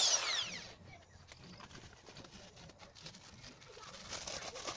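Handheld power drill winding down with a falling whine as the trigger is let go, then faint clicks and light handling knocks on the wooden frame, a little louder near the end.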